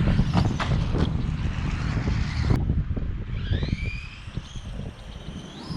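Brushless motor and gear drive of an electric RC monster truck whining up and down in pitch as it speeds up and slows, over a low rumble of tyres and wind on the microphone, with a few sharp knocks in the first second.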